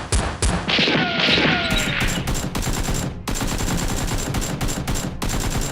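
Rapid bursts of automatic gunfire, shot after shot in quick succession, with a brief noisy burst about a second in; the firing cuts off suddenly at the end.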